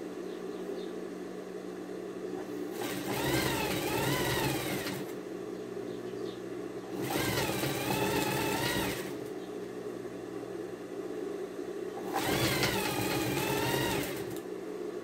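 Industrial single-needle lockstitch sewing machine stitching a straight seam in three runs of about two seconds each, its motor whine rising as it speeds up and wavering while it sews. A steady hum continues between the runs.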